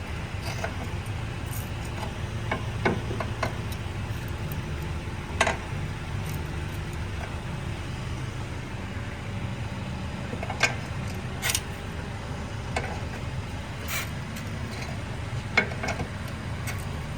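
Hyundai Grandeur HG's rear suspension creaking several times at irregular intervals over a steady low car rumble. The speaker puts the creaking down to a worn-out rear assist arm.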